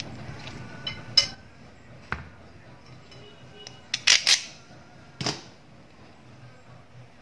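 A handful of sharp clinks and knocks of kitchen utensils, a knife on a plastic cutting board and ceramic dishware, with the loudest cluster of clinks about four seconds in.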